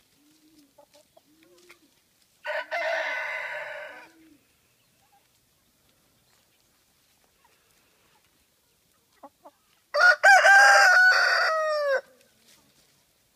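Black Australorp rooster crowing twice: a crow of about a second and a half about two and a half seconds in, and a longer, clearer crow that falls in pitch at its end, starting about ten seconds in. Soft low hen clucks sound before the first crow.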